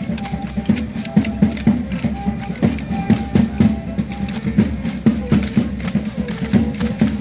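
Matachines dance music: a drum beating a fast, steady rhythm, with short held notes of a melody line that is typical of the violin in this music, and many sharp clicks over the top.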